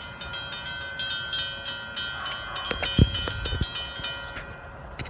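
Railroad grade-crossing warning bell ringing in quick, even strikes while the crossing gates lower, warning of an approaching train; it stops about four seconds in. A loud thump about three seconds in.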